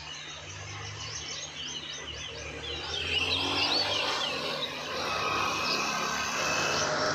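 Small birds chirping and twittering in quick repeated calls over an outdoor background haze, with a steady low engine hum underneath. The general noise grows a little louder about three seconds in.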